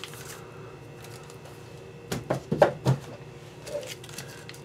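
A handful of sharp knocks and rubbing sounds about two seconds in, as a fireworks canister shell is tipped out of its cardboard display tube and handled. A faint steady hum sits underneath.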